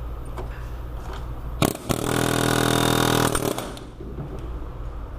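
Pneumatic air hammer running in one burst of about two seconds, starting a little under two seconds in, hammering on the steering knuckle to pop the outer tie rod end's tapered stud loose.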